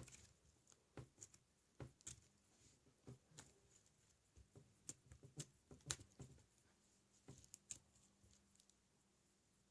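White slime being worked in the hands, giving off faint, irregular little clicks and pops. They come thickest around the middle and thin out near the end.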